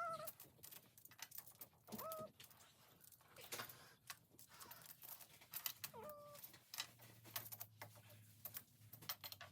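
Magnetic building blocks clicking and tapping as they are set in place and snap together, with three short pitched calls that bend in pitch, near the start, about two seconds in and about six seconds in.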